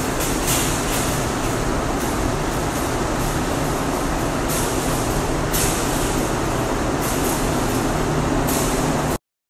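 Paint spray gun hissing steadily as it applies single-stage topcoat, over a low hum of running equipment, with several short, sharper surges of hiss. The sound cuts off suddenly near the end.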